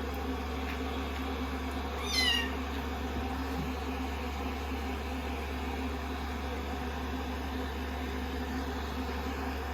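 A young kitten gives one short, high meow that falls in pitch, about two seconds in, over a steady mechanical hum.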